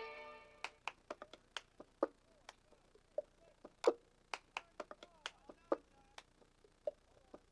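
A song fades out at the start, then a quiet gap between music tracks with a scatter of faint, irregular clicks and taps, some with a brief ring.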